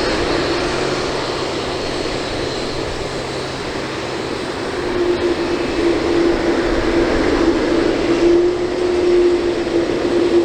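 Boeing 787-8 jet engines running at takeoff power: a steady rush of jet noise with a held droning tone that grows stronger and louder about halfway through.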